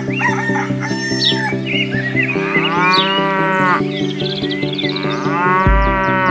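A cow mooing twice, two long calls that rise and fall in pitch, over steady background music with light bird chirps.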